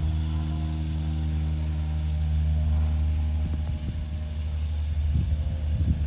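Electric motors and gearing of a battery-powered JAKKS Pacific PowerTrains toy train, several diesel locomotives pulling it, humming steadily as it runs along the track. From about halfway in, irregular low crackling joins the hum.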